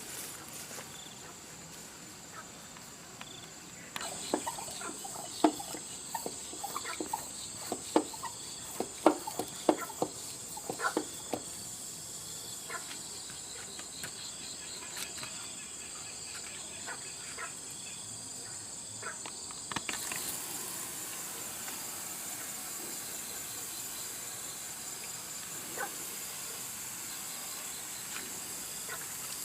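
Steady high-pitched insect chorus, with a run of sharp knocks and clicks between about four and twelve seconds in.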